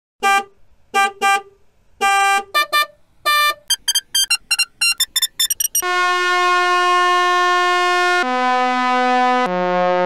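A car horn honks in a rhythmic pattern of short and longer beeps, then a faster run of short, higher-pitched beeps. At about six seconds a long, steady truck horn blast takes over, stepping down in pitch twice near the end.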